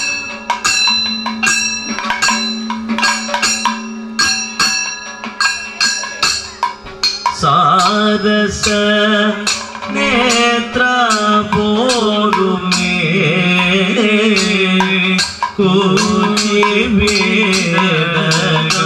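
Kathakali accompaniment: a maddalam drum and the singers' hand-held cymbals and gong keep up a fast, even rhythm over a steady drone. About seven seconds in, male voices begin singing the Kathakali song over the percussion.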